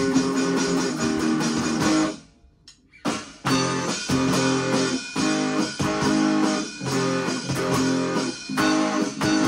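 Guitar-led rock band cover played by one person and layered by multitrack recording: strummed guitars over bass. About two seconds in the band stops dead for most of a second, then a single hit brings it back in.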